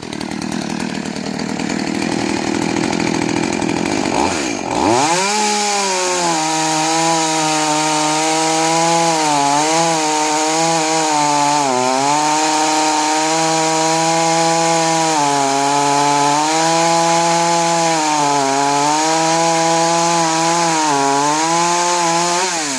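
Makita EA3201S35B two-stroke petrol chainsaw running at a low speed, then revving up sharply about five seconds in. It holds a high engine note with several brief dips in speed, and the revs drop off near the end.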